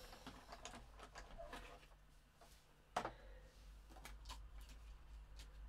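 Faint sound of a die-cutting machine running a die and card stock through its rollers: a low steady hum with scattered light clicks and one sharper click about three seconds in.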